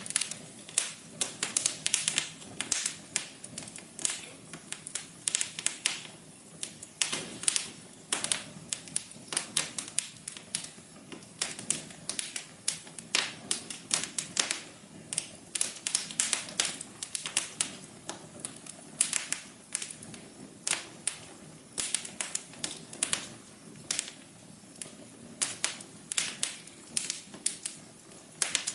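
Fire crackling in a fireplace: many irregular sharp pops and snaps, with a steady low rush of the flames underneath.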